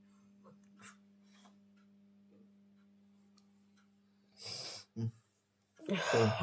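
A steady low electrical hum with a few faint clicks. Past the middle comes a brief burst of rustling, and near the end a louder rustle with a short voice sound mixed in.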